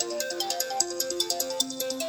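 An iPhone ringtone playing: a quick melodic tune of short stepping notes over a fast, even ticking beat.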